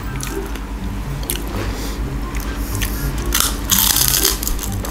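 Crispy kerupuk pasir (sand-fried crackers) crunching as they are bitten and chewed close to the microphone, with a loud burst of crunching about three and a half seconds in.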